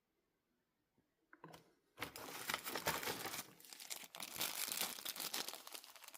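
Crinkling and rustling noise that starts about two seconds in, after a near-silent start, and goes on unevenly.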